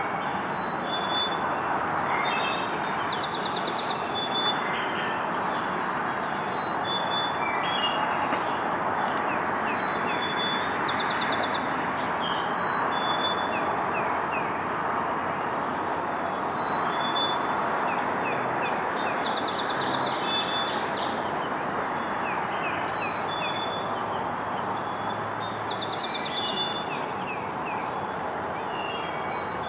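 Songbirds singing short repeated phrases every few seconds over a steady rushing background noise.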